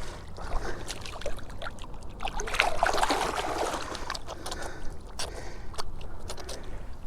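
Water splashing and trickling, loudest in a swell a little under halfway through, with scattered small clicks and knocks.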